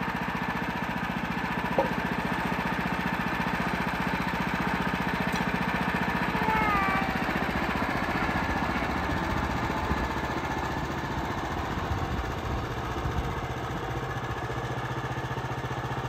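Gas engine of a Woodland Mills HM126 portable bandsaw sawmill running steadily. Its low note drops a little about ten seconds in.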